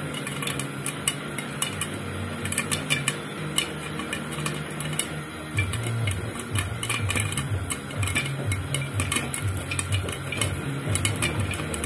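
Popcorn kernels popping in hot oil in a pan under a glass lid: many sharp, irregular pops in quick succession. A low hum runs beneath them and pulses from about halfway through.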